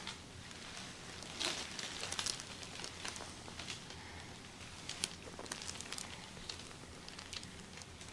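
Fabric rustling and crinkling with scattered small clicks and taps, from a person being massaged on a treatment table.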